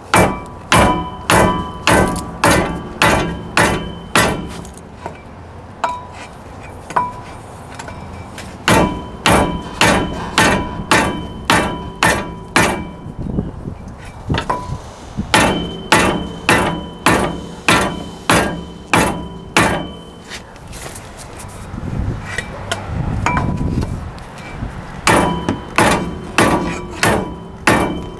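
Heavy hammer striking the rusted-on wheel hub assembly of a 2004 Ford Expedition to knock it loose, in four runs of blows at about two or three a second with short pauses between, each blow ringing like metal.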